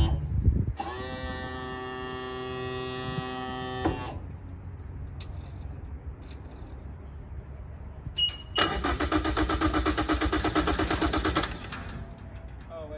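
Honda 90 hp four-stroke outboard's electric starter cranking twice without the engine catching: a steady whine of about three seconds, then after a short beep a second crank of about three seconds with a fast, even pulsing, each cut off suddenly. The engine does not fire because the kill-switch clip is not yet in place.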